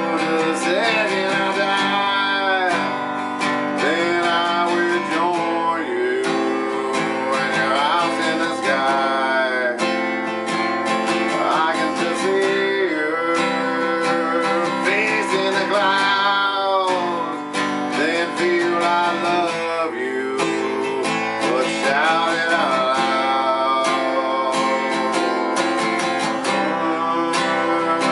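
Acoustic guitar strummed steadily in chords, with a man singing along.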